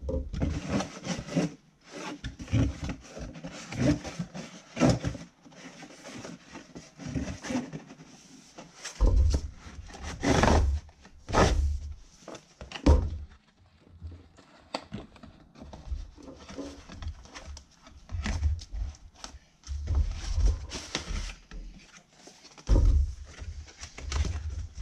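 Cardboard gimbal box, foam case and paper inserts being handled and packed on a table: irregular rustling, scraping and light knocks, with a few heavier thumps as the box is set down and bumped.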